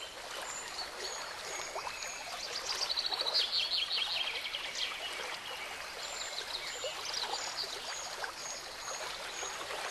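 Birds chirping over a steady rush of running water: a short high note repeats about twice a second, with a burst of rapid trills a few seconds in.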